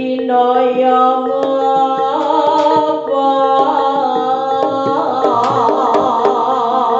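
Jaranan gamelan music: frequent hand-drum strokes under a wavering melodic line, over a steady held tone.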